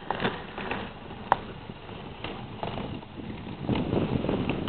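Dog sled moving over snow, with irregular knocks and clicks from the sled and a sharp click about a second in. A rising rush of snow and wind noise builds near the end.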